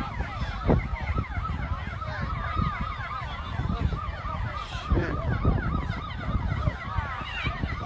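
Several emergency-vehicle sirens sounding at once, their rapidly wavering pitches overlapping, over a dense low rumble.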